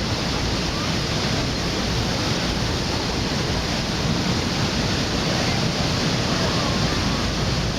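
Steady rush of falling water from Niagara's Horseshoe Falls, heard close up from the base of the falls.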